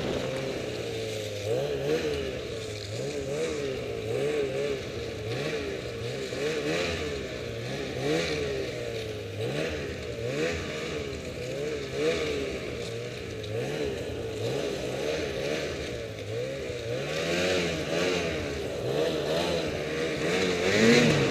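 Ski-Doo Summit X 800R E-TEC snowmobile's two-stroke twin engine running under load, its pitch rising and falling every second or two as the throttle is worked through deep snow.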